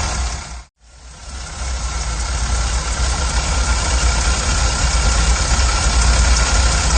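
1985 Chevy Van engine idling steadily while it warms up after a cold start. The sound drops out for an instant less than a second in, then fades back up to the same steady idle.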